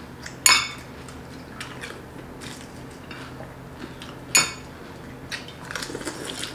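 Two sharp, ringing clinks against a glass bowl as pani puris are dipped into the pani: one about half a second in, the other just past four seconds. Faint small clicks follow near the end.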